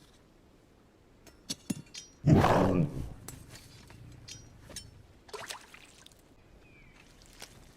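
A short, loud growl from an animated dragon about two seconds in, after a few sharp clicks. A fainter, briefer sound follows a few seconds later.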